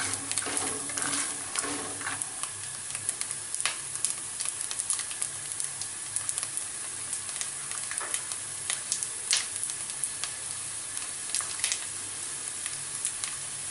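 Peanuts frying in oil in a nonstick kadai, sizzling with irregular crackling pops: the crackling is the sign that the peanuts are roasted. A spatula stirs them for the first couple of seconds.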